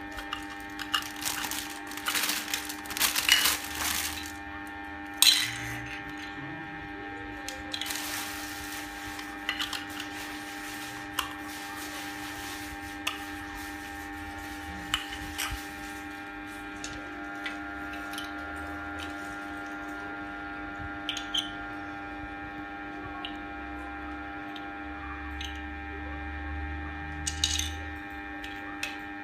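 Plastic packaging crinkling in a few bursts, with scattered clicks and taps of plastic Lego Duplo pieces being handled and set down on a tiled floor, over a steady hum with several fixed tones.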